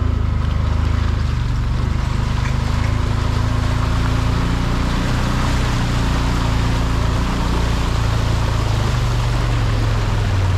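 Off-road utility vehicle's engine running at a steady low pitch as it drives along a shallow, water-filled trail, with a constant rushing splash of water from the tyres.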